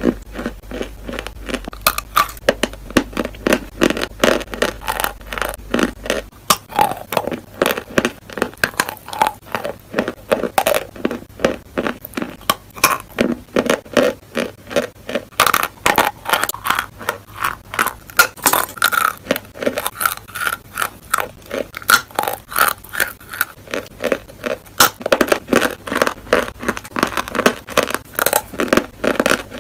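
Close-miked chewing of eating chalk: a steady run of wet crunches and clicks, a few every second, as the chalk is ground between the teeth into paste.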